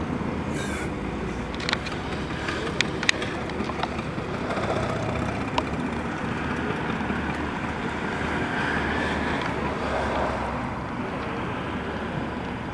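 Steady background rumble of passing road traffic, swelling twice as vehicles go by, with a few sharp clicks in the first half.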